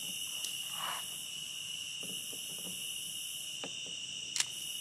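Crickets chirping steadily at a high pitch in the night. Near the end there is one sharp snip of kitchen shears cutting through a frog.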